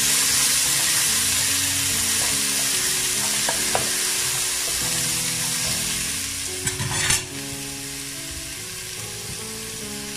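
Chopped onions sizzling in hot oil in an aluminium pot as they are stirred with a wooden spatula, with a few sharp knocks from the stirring about seven seconds in. The sizzle eases after that.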